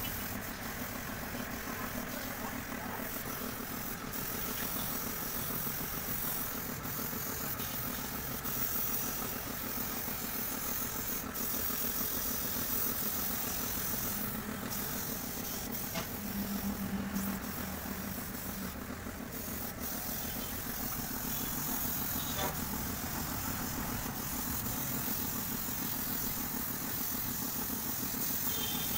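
Compressed air hissing from a gravity-feed paint spray gun as paint is sprayed, with the air compressor running steadily underneath. The hiss cuts out briefly a few times as the trigger is let go.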